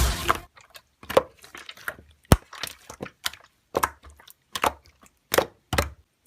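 Music cutting off in the first half second, then a dozen or so sharp taps and clicks at irregular intervals, like small knocks on a hard surface.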